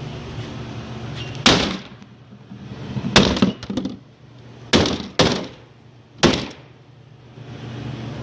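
A laptop being struck hard five times, with breaking and cracking sounds as it gives way.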